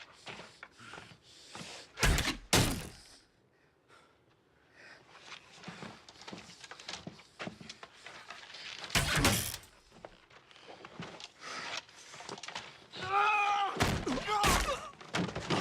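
Heavy thuds from a film sound track: two close together about two seconds in, another around nine seconds, then a strained voice crying out near the end.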